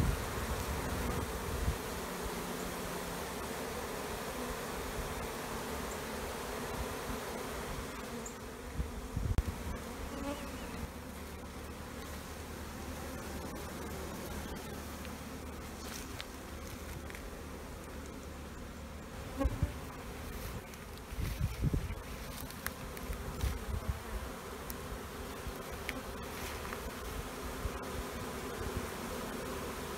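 A mass of honey bees buzzing in a steady drone from a colony being moved out of a barrel into a hive box, with a few low thumps from handling in between.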